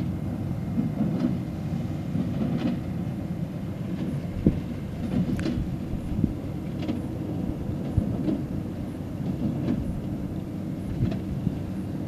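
New Holland TX65 combine harvester running while harvesting wheat: a steady low mechanical rumble with irregular sharp ticks and knocks every second or so.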